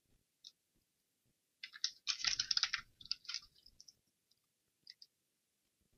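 A quick run of computer keyboard keystrokes and mouse clicks about two seconds in, with a few single clicks before and after.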